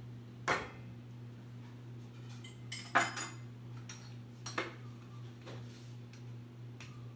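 Kitchen utensils knocking and clinking against a pan and dishes at the stove: a few separate strikes, the loudest about three seconds in, over a steady low hum.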